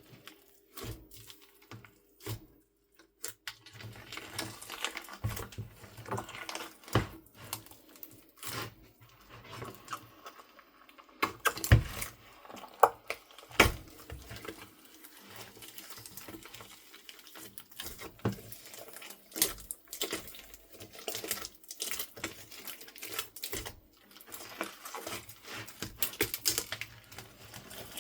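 Slime mixed with soft clay being squished and kneaded by hand: a dense, irregular run of sticky clicks and crackles, with a few louder pops about twelve to fourteen seconds in.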